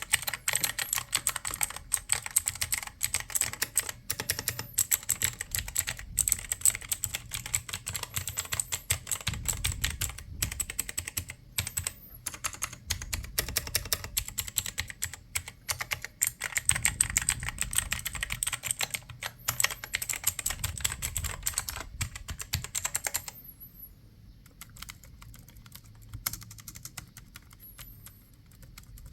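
Typing on a computer keyboard: a fast, continuous run of keystroke clicks that drops to a few quieter, scattered keystrokes about 23 seconds in.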